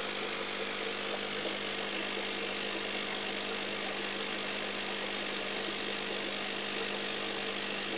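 Aquarium pump humming steadily: one low tone with a faint hiss above it, unchanging throughout.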